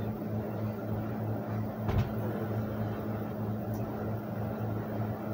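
A steady low hum over room noise, with one short thump about two seconds in.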